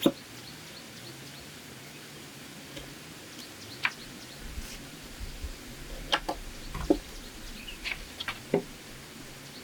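Bamboo knocking and clicking as it is handled and worked: a string of sharp, irregular knocks a second or so apart, the loudest right at the start.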